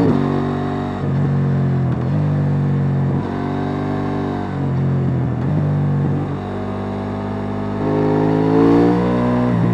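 KTM 890 Duke R's parallel-twin engine on the stock exhaust, ridden hard on the road: the engine note dips and recovers several times with gear changes and throttle changes, drops lower and quieter for a moment, then climbs again as it accelerates near the end.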